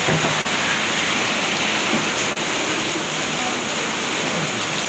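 Heavy rain pouring down steadily, a loud, even wash of falling water.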